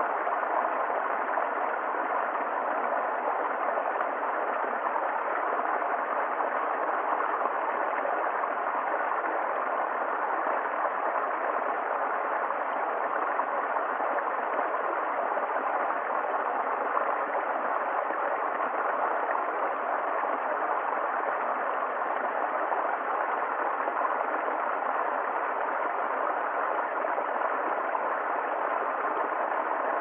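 Small stream cascading over rocks into a shallow pool: a steady, even rush of water that stays dull, with no high hiss.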